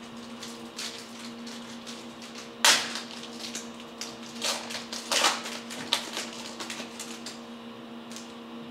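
Trading card packs and cards being handled: a few short crinkling, rustling sounds, the loudest about a third of the way in, over a steady low electrical hum.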